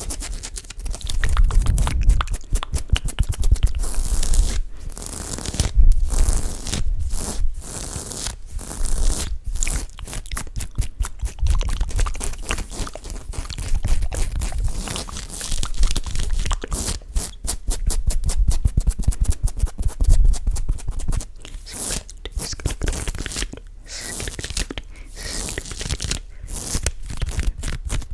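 Hands rubbing, pumping and swirling directly against a microphone. The sound is a dense, irregular crackling scrape with soft low thumps as the mic is squeezed and released.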